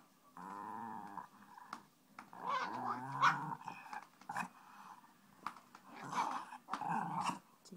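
Small puppy growling at a chew toy in several bouts, about half a second in, again around two to three seconds in, and once more near the end.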